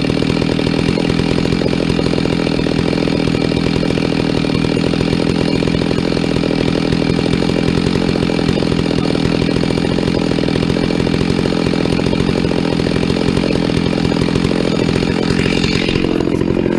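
Chainsaw on an Alaskan chainsaw mill, running steadily under load as it rips a maple log lengthwise into a slab. The sound changes briefly near the end.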